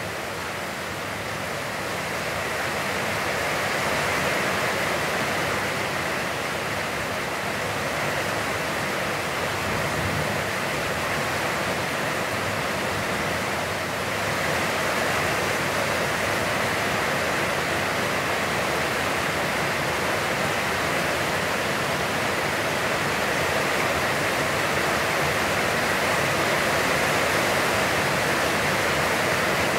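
Heavy, constant rain falling, a dense steady hiss that swells slightly in the first few seconds.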